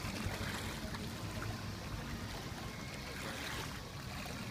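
Motorboat's outboard engine running steadily as a low hum, with water rushing under the hull.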